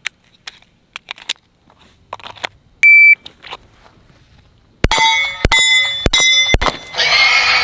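A shot timer's start beep, then about two seconds later a string of pistol shots roughly half a second apart, the hits ringing off steel targets. Near the end a longer, noisy ringing clatter lasts about a second and a half.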